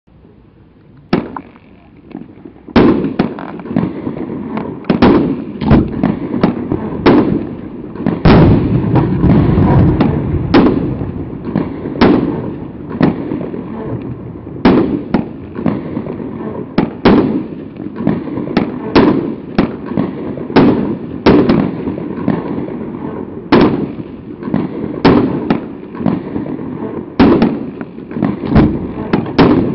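Pyrostar 'Fantasia' firework battery firing. A single sharp report comes about a second in, then from about three seconds a run of sharp reports, roughly one or two a second at uneven spacing, with continuous noise between them.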